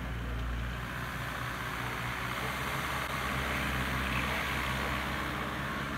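Case SR200 skid steer loader's diesel engine running steadily as the machine drives across loose dirt.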